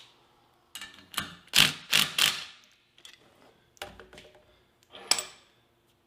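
A quick run of about eight sharp metallic knocks and clanks, the loudest cluster between one and a half and two and a half seconds in, with a last one near the five-second mark.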